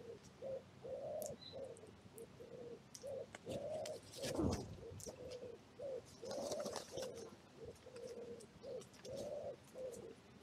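Wood pigeon cooing over and over, a steady phrased run of soft low coos with a longer stressed note in each phrase. About halfway through comes a brief, louder whoosh that falls in pitch.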